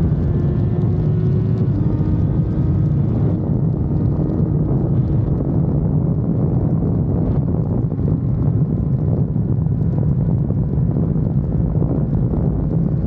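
Exhaust note of a Honda CBR650R's inline-four through a Mivv GP Pro exhaust, the engine pulling with a climbing pitch that steps down twice in the first few seconds, then running steadily. Heavy wind noise from riding speed lies over it.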